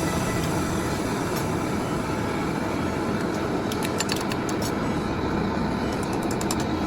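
Steady mechanical running noise, with a few quick clicks about halfway through and again near the end.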